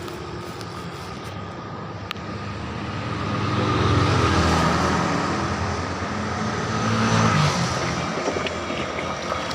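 A motor vehicle engine passing by, growing louder about three seconds in, peaking twice and then easing off. A single sharp click comes about two seconds in.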